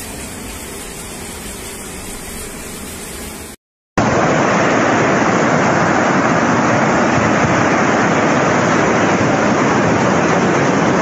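Floodwater torrent rushing through a street, a steady rushing noise. It cuts out for a moment about three and a half seconds in, then comes back much louder and closer.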